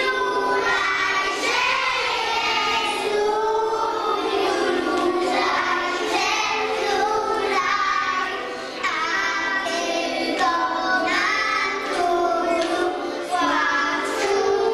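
A group of young children singing a Christmas song together in unison.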